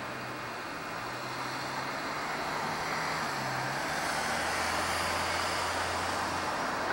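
Street traffic: cars driving along a busy city street, with tyre and engine noise swelling gradually over the first few seconds. A low steady hum sits under it and grows stronger in the second half.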